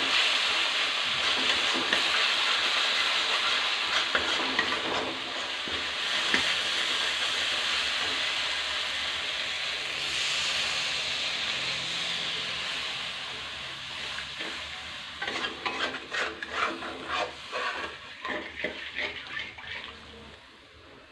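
Spice masala sizzling in a hot metal kadhai while a steel spatula stirs it. Water poured in about ten seconds in brings a brighter burst of sizzling, which then dies down, and over the last several seconds the spatula scrapes and clicks against the pan.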